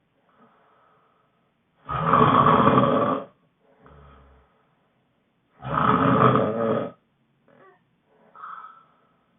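A sleeping person snoring: two loud snores about four seconds apart, each lasting over a second, with soft breaths between them.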